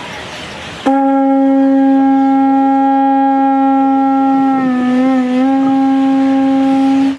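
Conch shell trumpet (Hawaiian pū) blown in one long, loud, steady note that starts about a second in, wavering and dipping briefly in pitch a little past the middle.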